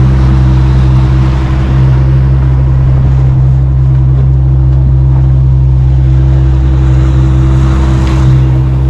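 Suzuki 115 outboard motor running at a steady cruising speed with the boat under way, over the rush of water and wake along the hull.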